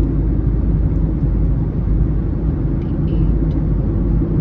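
Car cabin noise while driving: a steady low rumble of tyres on the road and the engine.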